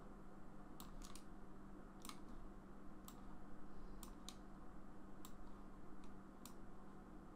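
Faint computer mouse clicks, about nine, irregularly spaced, over a low steady electrical hum.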